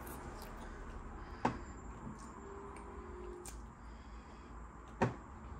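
Quiet eating at a table: wooden chopsticks clicking sharply against a ceramic noodle bowl, once about a second and a half in and again near the end.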